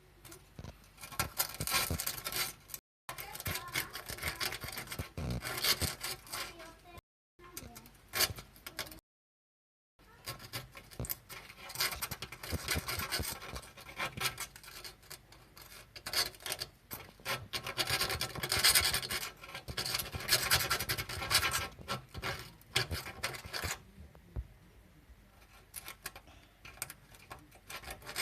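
Paint and rust being scraped and sanded by hand off a car's steel body panel: irregular rasping, scratching strokes, quieter in the last few seconds.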